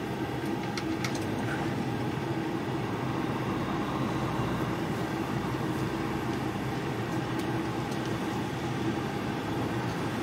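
Semi-truck diesel engine idling steadily with an even, low hum.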